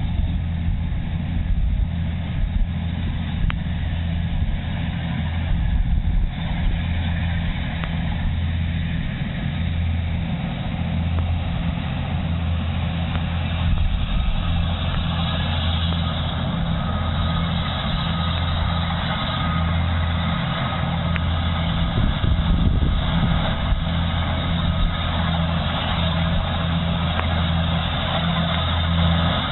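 Kubota combine harvester running steadily, its diesel engine giving a deep, even hum, with a faint high whine joining in about halfway through.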